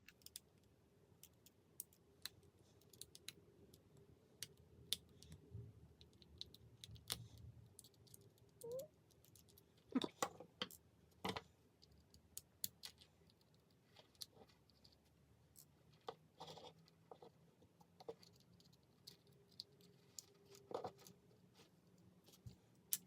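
Faint, scattered clicks and light taps of a small precision screwdriver working the tiny screws inside an iPod nano 5th gen's metal case, with a few sharper clicks near the middle.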